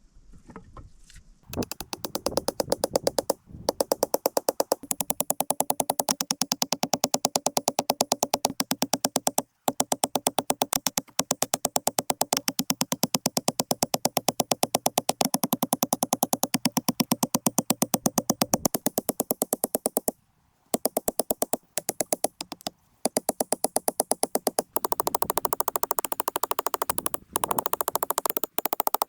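Electronic background music: a fast, even pulse over sustained synthesizer chords that change every few seconds, broken by a few brief gaps.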